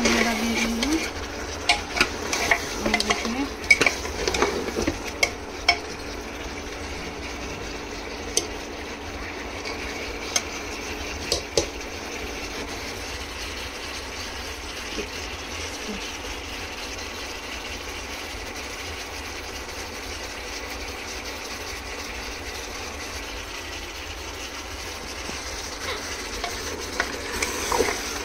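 A spoon clinking and scraping against a pot as mutton in its gravy is stirred, over a steady sizzle of the meat cooking in oil. The clinks come mostly in the first twelve seconds and again near the end, with only the sizzle in between.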